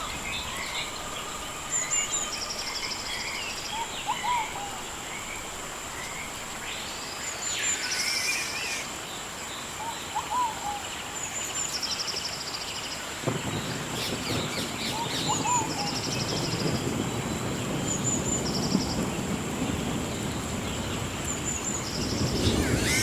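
Rainforest ambience: a steady high-pitched insect drone with short bird calls and chirps recurring every couple of seconds. About halfway through, a low rushing noise comes in abruptly and carries on under the calls.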